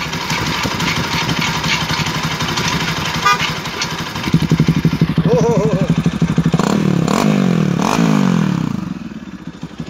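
Bajaj Pulsar NS200's single-cylinder engine running at idle, its exhaust escaping through a hole drilled in the catalytic converter section that is opened by pulling a brass plug. About four seconds in the exhaust note turns louder and choppier, and the revs rise and fall briefly a couple of times before easing off near the end.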